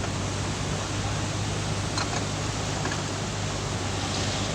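Steady running noise of a car, heard from inside: a low engine hum under an even hiss, with a few faint ticks.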